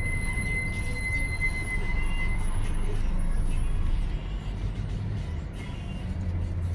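Car driving in city traffic: a steady low rumble of engine and road noise, with a thin high whine over the first couple of seconds.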